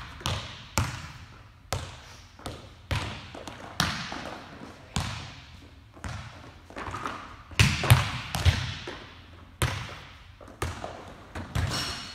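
Volleyballs being hit and bouncing off the floor and walls of a gym: an irregular series of sharp smacks, each echoing in the large hall, with the loudest cluster about eight seconds in.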